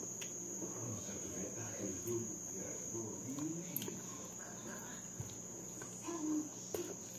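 A cricket trilling steadily on one high unbroken note, with soft chewing and a few light clicks of a small metal bowl being handled.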